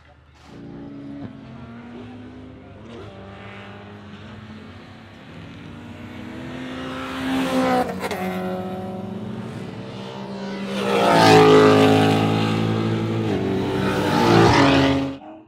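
Ford Mustang race car's V8 engine at racing speed on track, passing twice, with its pitch rising and falling through the gears. The second pass, from about two-thirds of the way in, is the loudest, and the sound cuts off abruptly near the end.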